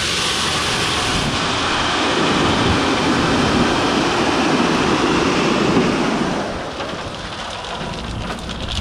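Cobblestone sliding out of a tipped hydraulic dump trailer bed: a loud, continuous rattling rush of stones that eases off about six and a half seconds in as the load runs out.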